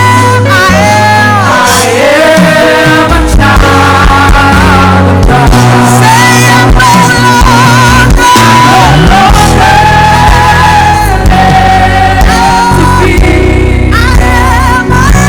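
Live church worship band playing loudly, with bass and drums under sustained sung lines with vibrato.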